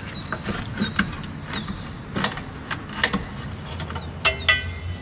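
Hand wrench turning a 10 mm bolt on a brake splash shield: scattered metallic clicks and clinks, one near the end ringing briefly, over a low steady hum.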